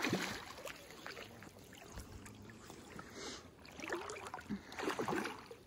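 Hooked coho salmon thrashing and splashing at the water's surface in several bursts, then a landing net sweeping through the water to scoop it.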